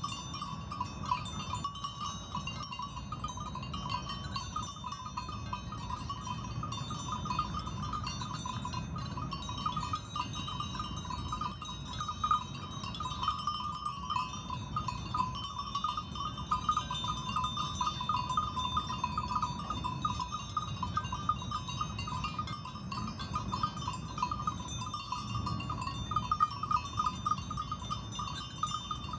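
Several small bells on grazing sheep jingling continuously and irregularly, over a steady low rumble.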